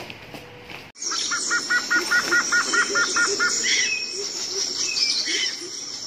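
Forest ambience that starts abruptly about a second in: birds chirping, one repeating a quick note about five times a second, over a steady high insect drone.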